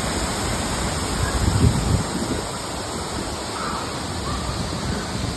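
Waterfall pouring over a rock ledge into a pool: a steady rushing noise, with low rumbles in the first two seconds.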